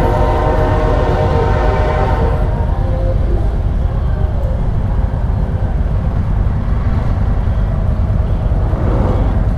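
Touring motorcycle running as it pulls away, a steady low rumble under it. For the first two seconds or so, a horn-like chord of several steady tones sounds over it and then fades out.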